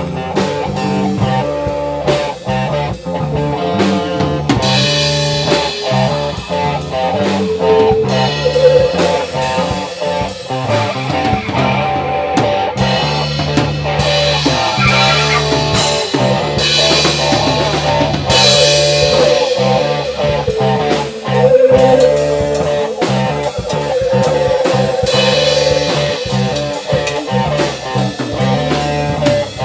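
Bluesy instrumental rock jam: a lead guitar plays held, wavering notes over bass guitar and a drum kit, with no singing.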